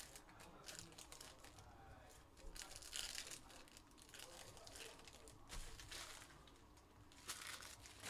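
Faint crinkling and tearing of foil Panini Phoenix football card-pack wrappers as they are handled and opened, in several short bursts.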